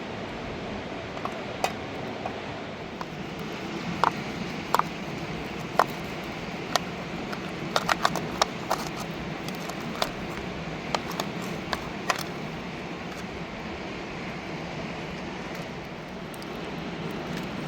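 Steady rush of a mountain river. A scatter of sharp knocks and clicks sounds over it, thinning out and stopping about two-thirds of the way through.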